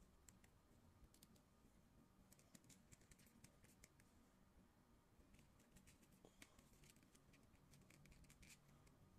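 Very faint scattered clicks and scratches of a plastic action figure being handled, its hip and leg joints worked by hand.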